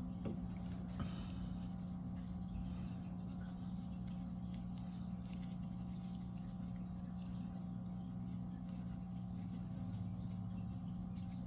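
A steady low hum, with faint soft rustling and a couple of light clicks near the start, typical of yarn and a crochet hook being worked by hand.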